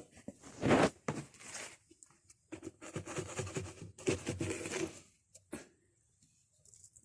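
Rustling and scraping handling sounds in a few irregular bursts, the longest from about two and a half to five seconds in.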